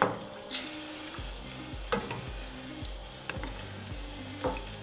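A plastic spoon stirring rice, water and tomato sauce in a stainless steel braiser, with the liquid swishing and several light knocks of the spoon against the pan. Faint background music with a low pulse underneath.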